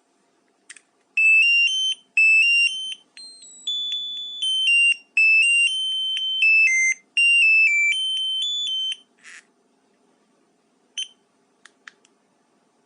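Car alarm key fob's piezo beeper playing a short electronic tune of stepped, high beeping notes for about eight seconds. A few faint clicks and one short beep follow.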